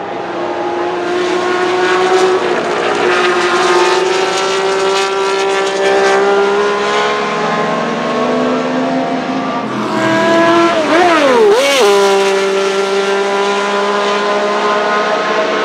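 Sports-prototype race car's engine running hard, its note climbing slowly. About eleven seconds in the pitch dips and rises twice in quick succession, then the engine pulls on steadily at a higher note.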